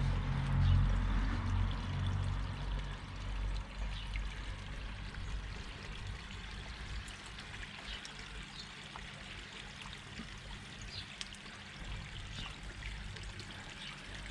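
Water trickling and pouring steadily in a garden pond, with scattered small ticks and splashes. A low rumble is loudest in the first couple of seconds, then fades.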